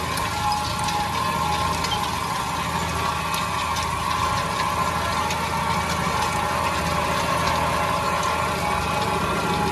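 Massey Ferguson 8S.265 tractor's six-cylinder diesel running steadily under load as it pulls a levelling cultivator through ploughed soil, heard through the open cab window, with a few faint ticks.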